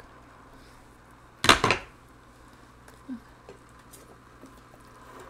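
Two quick clattering knocks of kitchenware against a metal pot about a second and a half in, followed by a softer single knock about three seconds in.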